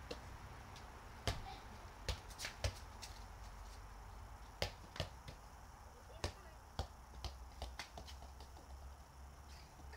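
Football being kicked, caught and bounced on paving slabs: a string of sharp, irregular thuds, the loudest about a second in and again near two and a half and four and a half seconds in.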